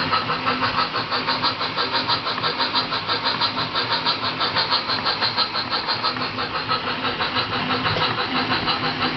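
Steam locomotive chuffing played by a Bachmann DCC sound decoder through a small speaker in a model Thomas the Tank Engine, as the model runs forward: an even beat of about five chuffs a second.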